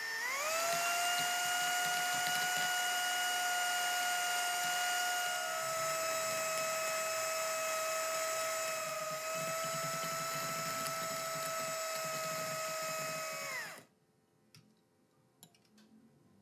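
Electric hand mixer running at high speed, its beaters whipping cream and condensed milk until thick. A steady motor whine that spins up at the start, drops slightly in pitch about six seconds in, then winds down and stops near the end, followed by a few faint taps.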